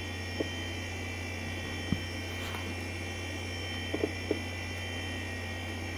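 Steady low electrical hum with faint high steady tones, broken by a few soft clicks as the monitor's front-panel buttons are pressed, one near two seconds in and a quick cluster of three about four seconds in.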